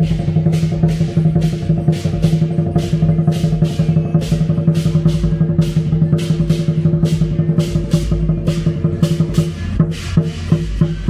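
Lion dance percussion: drum and cymbals striking in a steady rhythm of about three beats a second, over a steady low pitched note.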